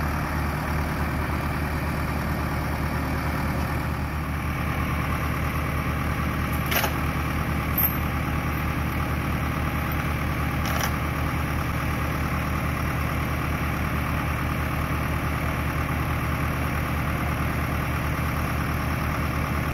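Farm tractor diesel engines idling steadily with no revving, with a couple of short sharp clicks partway through.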